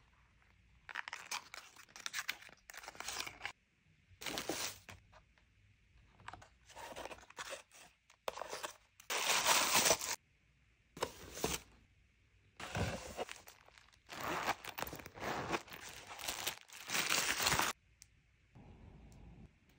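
Tissue paper and shredded paper packing filler rustling and crinkling as hands dig through a gift box. It comes in repeated short spells of about a second each, with brief quiet gaps between.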